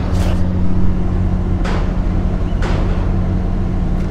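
Steady low hum of a large engine idling, with three brief rushes of noise at about a quarter second, near two seconds and near three seconds in.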